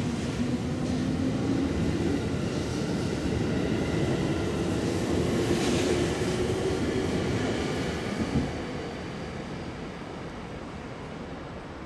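JR Central 211-series and 313-series electric multiple-unit train accelerating away from the platform, its wheels and motors running with a tone that climbs slowly in pitch. A sharp click comes about eight seconds in, and the sound then fades as the last car clears.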